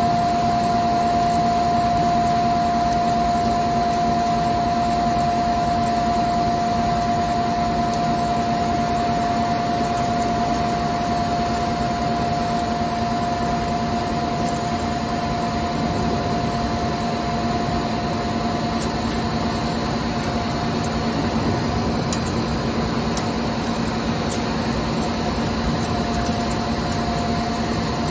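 CNC lathe running under cut: the spindle turns the bar while coolant sprays over the tool, giving a steady hiss with a constant high whine over it.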